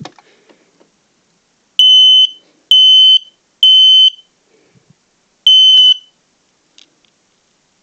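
Smoke alarm sounding on its test button: three loud, steady, high-pitched beeps about a second apart, a pause, then a fourth beep starting the next round. This is the temporal-three evacuation pattern.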